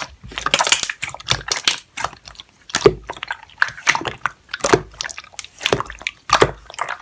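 Slime being pressed, stretched and poked by hand: irregular wet sticky clicks and pops, several a second.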